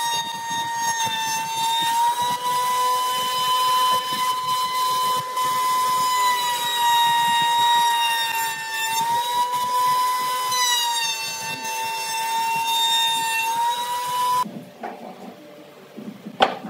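Table-mounted wood router running at high speed, a steady high whine that sags slightly in pitch a few times as the bit cuts into a pine block fed along the fence. It cuts off abruptly near the end, followed by a few sharp wooden knocks as cut pieces are handled on a workbench.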